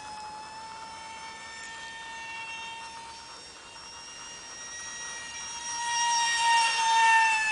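High, steady whine of a micro electric ducted fan (a GWS EDF30 fan unit spun by a small brushless inrunner motor) driving a tiny RC jet in flight. The whine grows louder from about six seconds in, its pitch bending slightly up and then down as the plane passes closer.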